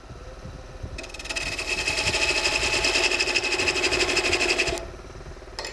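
A gouge cutting a curve into an ash blank spinning on a Robust Tradesman wood lathe: a steady, rapid, chattering hiss that starts about a second in and stops shortly before the end, over the low hum of the running lathe.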